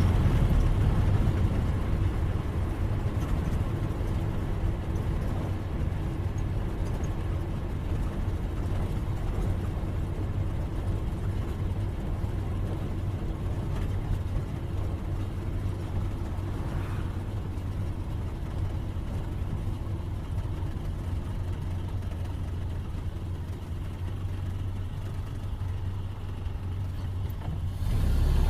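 1931 Ford Model A's four-cylinder engine running steadily as the car is driven, with a low, even hum; it grows louder about a second before the end.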